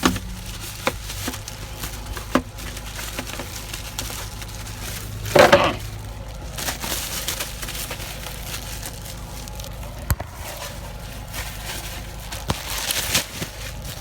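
Bubble wrap and plastic packaging being handled and pulled open: crinkling with scattered sharp clicks and pops, and a louder rustling burst about five seconds in.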